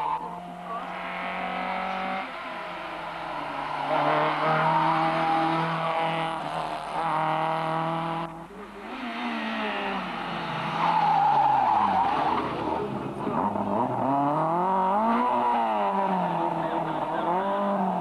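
Rally car engine revving hard, its pitch repeatedly climbing and dropping through gear changes and lifts as the car goes by at speed, with a brief dip about eight seconds in.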